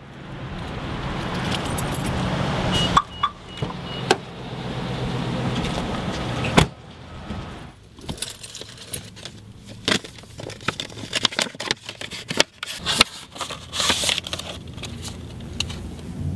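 Car interior sounds. A steady hum swells in, a few short high beeps come about three seconds in, and a sharp knock follows midway. After that, keys jangle with many small clicks and rattles.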